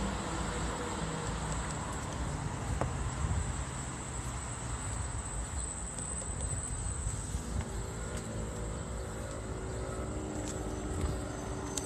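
Road traffic noise, a steady rumble, with a thin high-pitched whine over it.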